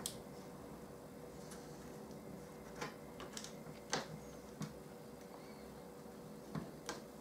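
Faint scattered taps and rubs of hands pressing a card wall panel of a model engine shed kit into place, over a low steady hum.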